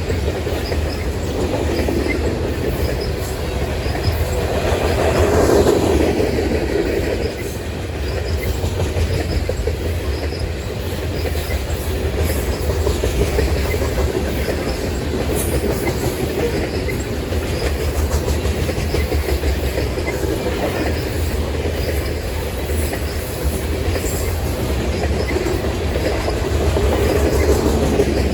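Canadian Pacific grain train's covered hopper cars rolling past, steel wheels on the rails making a steady rumble with clickety-clack, swelling a little about five seconds in and again near the end.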